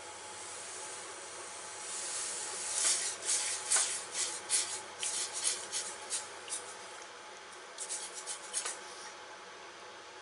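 Footsteps crunching through dry leaf litter, in quick irregular runs of scratchy crunches from about three seconds in to about nine seconds, with a short pause near the middle.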